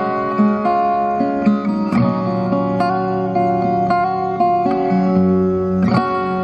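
Solo acoustic guitar played fingerstyle: a melody over sustained bass notes, with a few sharp percussive accents.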